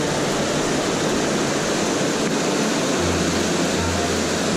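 Steady rush of a mountain river's flowing water.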